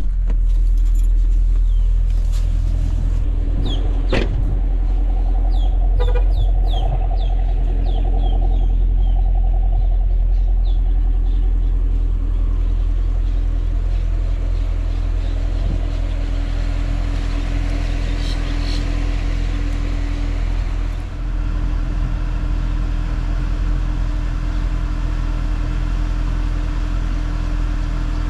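Camaro SS 1LE's 6.2-litre LT1 V8 running steadily at low revs, a deep, even rumble with no revving. A few faint high chirps come and go in the first several seconds.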